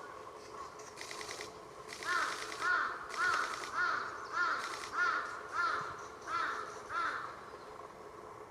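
Grey-headed woodpeckers calling at the nest: a faint buzzy rattle, then about two seconds in a run of about nine harsh, arched calls, evenly spaced about half a second apart, which stops about seven seconds in.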